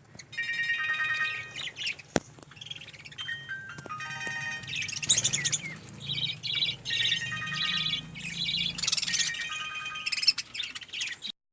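Budgerigars chirping and warbling in a busy stream of short, high calls, with a sharp click about two seconds in. The sound cuts off suddenly just before the end.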